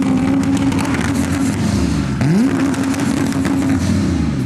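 A car engine revving. It is held at high revs, drops off and snaps quickly back up about two seconds in, then eases down near the end.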